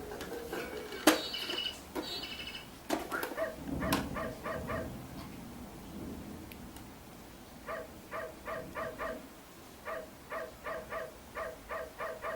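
Battery-powered toy bird giving short chirps in evenly spaced runs of five or six, about three a second, with a few knocks in the first few seconds.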